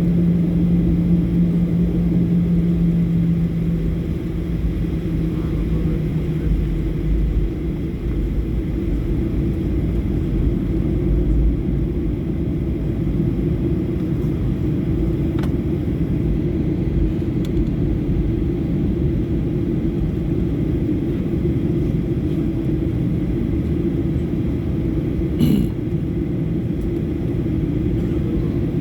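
Boeing 737 jet engines: a steady low rumble, with a hum that fades out in the first few seconds and a brief click later on.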